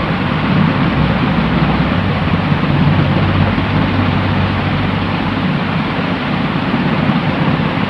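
Steady white-noise sleep sound: an even, unbroken rushing hiss with a low rumble underneath and little treble.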